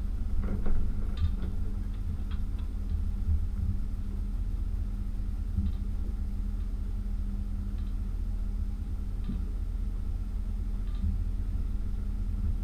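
A tow vehicle running and rolling slowly across a gravel lot with an empty boat trailer behind it: a steady low rumble with a faint hum and scattered light clicks and rattles.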